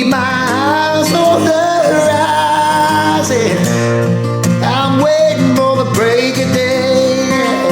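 Country-style song: acoustic guitar under a male voice singing long held notes that glide and waver, without clear words.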